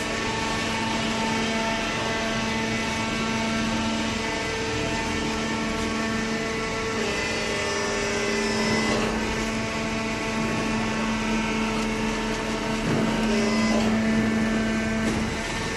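Automatic-tie baler running while baling cardboard: a steady machine hum with whining tones that shift pitch a few times.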